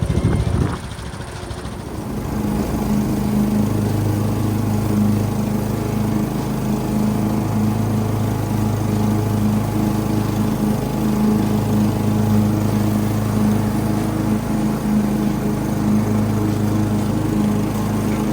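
Lawn mower engine running steadily, after a brief dip in level about a second in.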